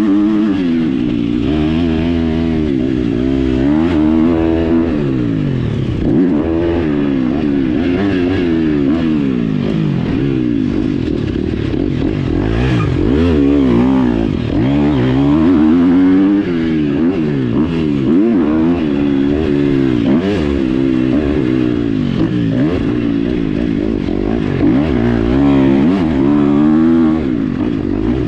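Dirt bike engine revving hard, heard up close from a GoPro mounted on the bike or rider: its pitch climbs and drops again and again as the throttle is opened and shut through the lap.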